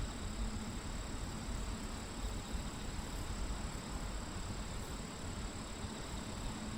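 Steady field ambience: a continuous high-pitched insect drone over a low, uneven rumble.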